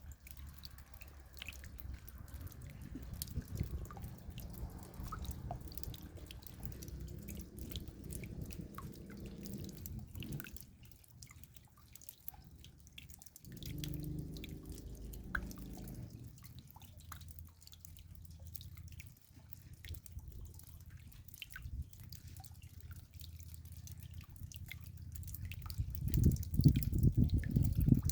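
Raindrops dripping, many small separate drop ticks at an uneven pace over a low rumble. The rumble swells loud near the end.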